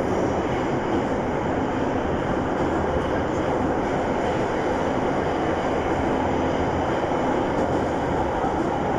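Moscow Metro 81-717.5M 'Nomernoy' subway train running at speed through a tunnel, heard from inside the car: a steady, even rumble of wheels on rail and tunnel noise with no distinct clicks or squeals.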